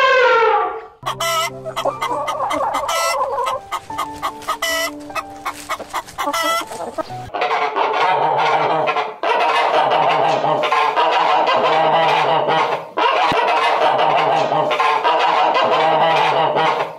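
An elephant's trumpet, falling in pitch, ends within the first second. Then white domestic ducks quack, at first in separate calls and from about seven seconds in as a dense, continuous chorus of many birds.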